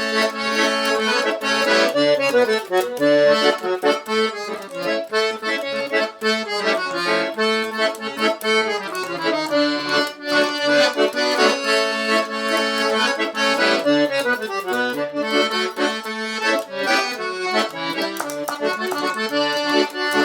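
Instrumental break of a vanera, the gaúcho dance music, led by accordion playing quick melodic runs over a steady, bouncing bass rhythm.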